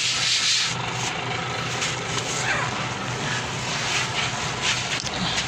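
Steady mechanical drone of a running engine or motor, with a brief hiss right at the start.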